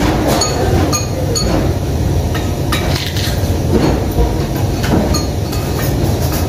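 Spoons and chopsticks clinking against bowls and plates as people eat, a scatter of sharp clinks every second or so over a steady low room rumble.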